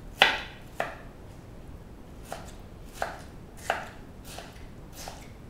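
Chef's knife dicing peeled tomatoes on a wooden cutting board: seven separate knocks of the blade against the board, unevenly spaced, the first the loudest.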